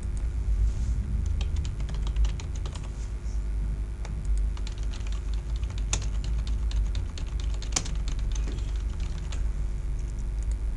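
Typing on a computer keyboard: quick, irregular keystrokes, with two louder clicks about six and eight seconds in, over a steady low hum.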